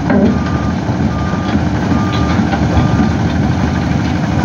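Tracked hydraulic excavator's travel alarm beeping about once a second as the machine moves on its tracks, over the steady running of its diesel engine.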